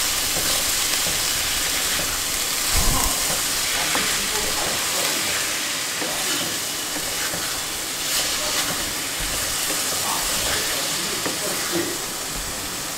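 Chopped onions, garlic, ginger and green chili sizzling steadily in hot oil and ghee in a wok as a spatula stirs them, with a few knocks of the spatula against the pan, the loudest about three seconds in.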